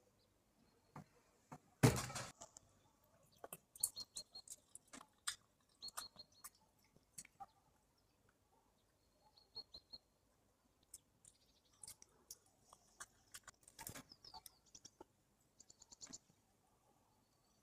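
A cat jumping down from a kitchen counter lands with one thump about two seconds in. Scattered faint clicks and a few short high chirps follow. Near the end the cat is eating from its food bowl.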